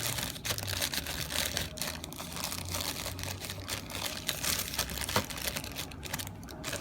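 A cable's retail box and its plastic packaging being opened and handled: continuous crinkling and rustling with many small clicks and taps.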